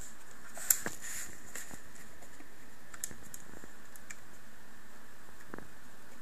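A few sharp plastic clicks and taps from a small plastic cube LED clock being handled and turned over, the loudest click under a second in, over a steady hiss.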